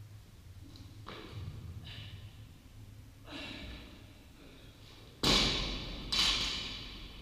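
Loaded barbell with bumper plates dropped from overhead onto a rubber gym floor, landing with a loud thud and hitting again about a second later. Before it, the lifter's sharp, forceful breaths during the snatch.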